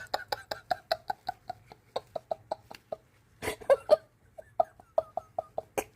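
Stir stick clicking quickly and regularly against a mixing cup as tinted epoxy resin is stirred, about four or five ticks a second, pausing briefly near the middle before picking up again.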